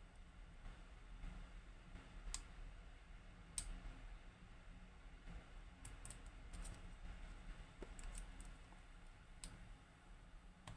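Faint, sharp clicks of a lock pick working the pins of a Hori Trident, a Japanese high-pin-count lock with T-spool drivers, about eight of them scattered unevenly.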